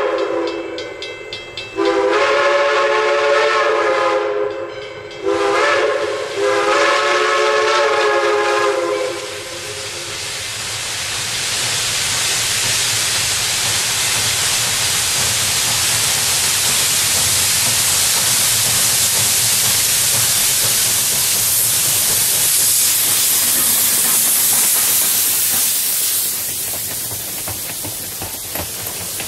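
Steam locomotive No. 40, a 2-6-2, blowing its whistle for the grade crossing: long, long, short, long, the last blast ending about ten seconds in. Then a loud steady hiss of steam as the engine passes, easing near the end into the coaches rolling by.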